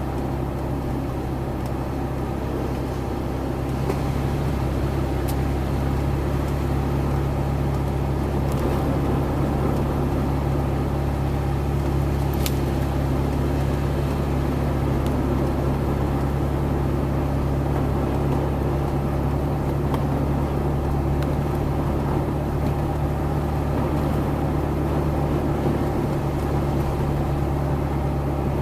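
A motor running steadily as a constant low drone, with a few faint clicks.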